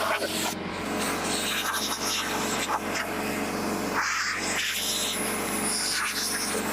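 Frontier OS27 portable band sawmill's gas engine running steadily.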